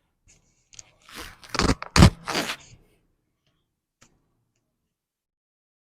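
Spinal joints popping during a seated chiropractic adjustment: a quick cluster of cracks and crunches starting about a second in, the loudest near the two-second mark.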